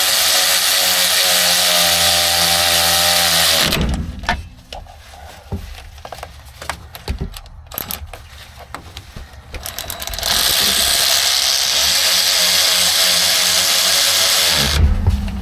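Power drill running small bolts down on a Jeep driveshaft, in two steady runs of a few seconds each with a pause of quieter clicking and handling between them.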